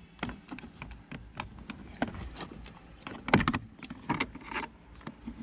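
Screwdriver prying at a plastic trim piece on a Nissan Rogue's interior door panel: scattered scrapes and clicks, with one sharp click about three and a half seconds in.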